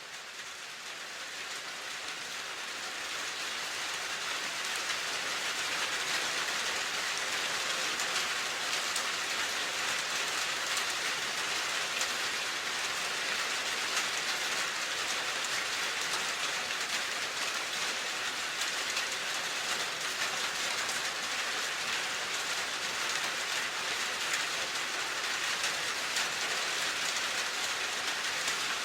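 Steady rain falling, a dense even hiss of drops with fine ticks, fading in over the first few seconds and then holding steady.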